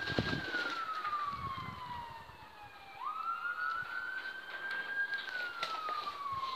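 Emergency-vehicle siren sounding a slow wail: its pitch slides slowly down, then climbs quickly again about three seconds in, holds high, and starts to slide down once more.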